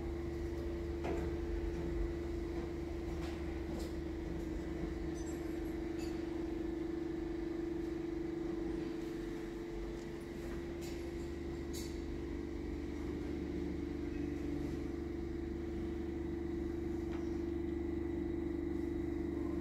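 Steady mechanical hum: a low rumble under an even, unchanging tone, with a few light knocks scattered through it.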